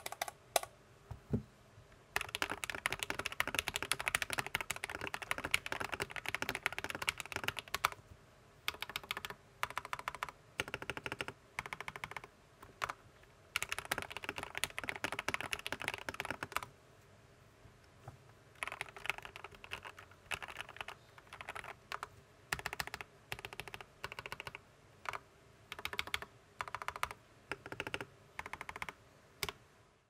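Typing on a Tom680 (TM680) mechanical keyboard fitted with lubed Akko Matcha Green switches, lubed stock stabilizers, foam and tape mods, and PBT keycaps. The keystrokes come in fast runs with short pauses between.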